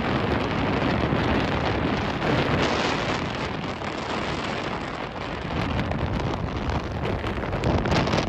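Wind rushing and buffeting over the microphone aboard a motorboat running at speed, with the rush of the hull through the water underneath, steady and loud throughout.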